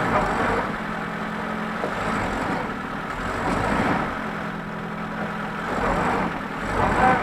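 Lada Niva engine revving in repeated surges as the stuck car tries to drive out of deep mud.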